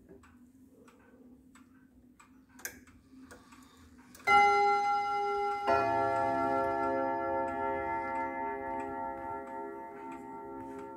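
Gustav Becker quarter-striking pendulum wall clock ticking faintly, then striking the quarter-hour: two chime notes about a second and a half apart, a ding-dong, which ring on and slowly fade. It is the quarter-past strike, set off by moving the minute hand round to the quarter.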